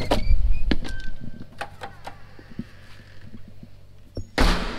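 A walk-in door's knob and latch clicking as the door is opened, with a few small clicks and knocks and faint brief squeaks. A short loud rush of noise near the end.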